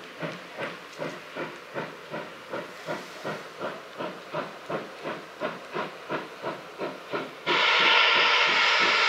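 Steam locomotive working hard under load, its exhaust chuffing in an even rhythm of nearly three beats a second. About seven and a half seconds in, a much louder, steady blast of steam starts suddenly and drowns the beats.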